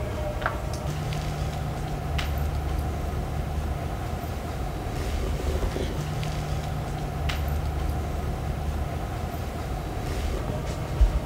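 A steady low rumble with a few faint clicks, and a dull thump near the end.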